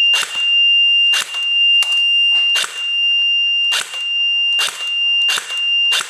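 Cyma Thompson M1928 airsoft electric gun firing single shots through a chronograph, about eight sharp cracks spaced irregularly less than a second apart. A steady high-pitched beep-like tone sounds under the shots and breaks off briefly at each one.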